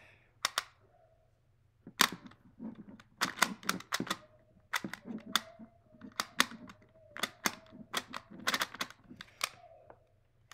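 Rubik's Clock puzzle being solved by hand: sharp, irregular clicks, sometimes in quick runs, as its pins are pushed and its dials are turned.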